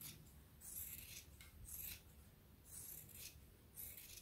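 Fabric scissors snipping through layers of quilting cotton and interfacing, trimming the seam allowance around a sewn tulip appliqué shape. Faint, short cuts about once a second, five in all.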